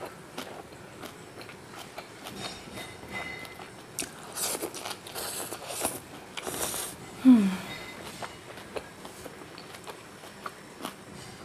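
Close-miked mouth sounds of a person eating chow mein noodles: wet chewing and small lip smacks throughout, with a few noisy slurps of noodles in the middle. The loudest moment, about seven seconds in, is a short low hum that falls in pitch.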